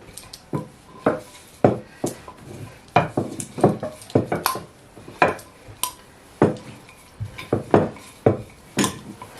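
Kitchen utensils and dishes knocking and clinking on a worktop: about twenty irregular sharp knocks and clicks in a row.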